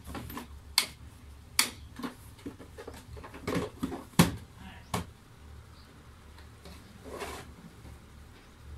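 Sharp clicks and knocks of a small screwdriver and parts being handled and set down on a wooden desk beside an upturned laptop, about eight in the first five seconds, the loudest about four seconds in. A short soft rustle follows near the end, over a faint low hum.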